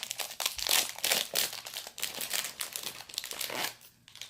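Plastic wrapper crinkling and tearing as it is pulled off a small toy doll, a dense run of crackles that stops shortly before the end.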